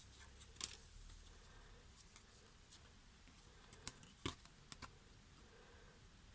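Faint, scattered clicks and taps of trading cards being handled and flipped, the sharpest a little past four seconds in.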